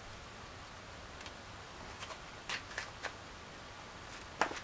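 Faint, steady hiss and crackle of a charcoal flower-pot cooker smoking under an upturned frying pan, with a few sharp ticks about halfway through and again near the end.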